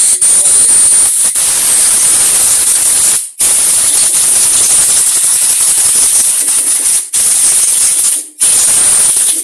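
Aerosol carburettor cleaner sprayed through a carburettor jet: a loud, high hiss in several long bursts broken by brief pauses, flushing dirt out of the small brass jet.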